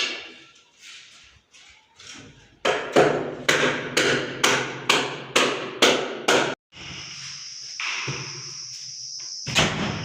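Hammer striking about nine times in quick succession, about two and a half blows a second. The hammering is followed by a steady high-pitched hiss and one more knock near the end.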